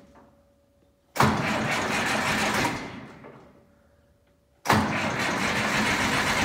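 Starter cranking a cold Massey Ferguson 175 diesel tractor engine in two attempts, one starting about a second in and one near the end, each beginning abruptly and then tapering off, without the engine catching.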